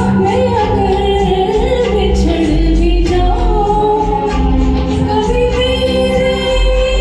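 A woman singing a slow Hindi song with long, sliding held notes over instrumental accompaniment.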